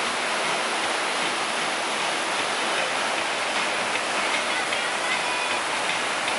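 Whitewater river rapids rushing steadily over and around boulders.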